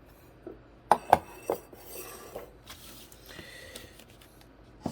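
Cardboard boxes and trading-card packaging handled on a table: three sharp clinks and knocks about a second in, then a soft rustling.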